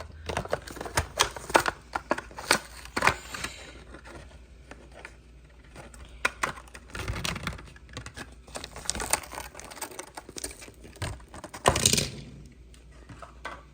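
Hot Wheels blister pack being opened by hand: irregular clicks and crackles of the plastic bubble and cardboard card, with two longer crinkling, tearing stretches about seven and twelve seconds in.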